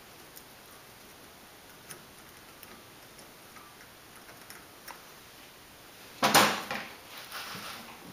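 Faint small metal clicks as a cotter pin is worked through the castle nut on a wheel hub spindle, then a louder clatter of metal hand tools twice from about six seconds in.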